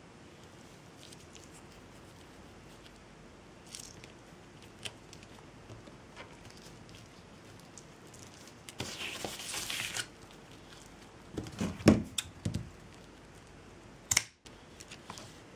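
Craft handling sounds from working jute by hand: a few faint ticks, a scratchy rustle lasting about a second near the middle, a few soft knocks a little later and one sharp click near the end.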